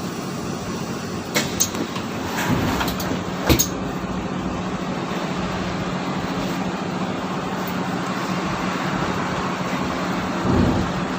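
Mercedes-Benz O530 Citaro city bus running, heard from inside: a steady drone of engine and road noise with a low steady hum, broken by a few sharp knocks and rattles in the first four seconds and a dull thump near the end.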